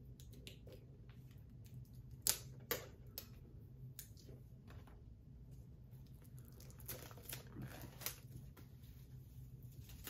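Scattered clicks, taps and plastic crinkles from a 4K Blu-ray SteelBook and its packaging being handled and opened. Two sharp clicks about two and a half seconds in are the loudest, with a further run of light clicks and rustling near the end.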